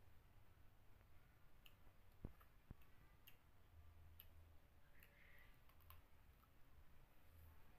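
Near silence with faint scattered clicks and a low hum: the small mouth and finger sounds of someone eating food with their hands.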